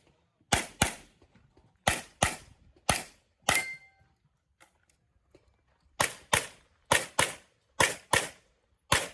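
Rapid handgun fire in a practical-shooting stage: about a dozen shots, many in quick pairs, with a pause of about two seconds in the middle before another fast string. One shot is followed by a short ringing tone.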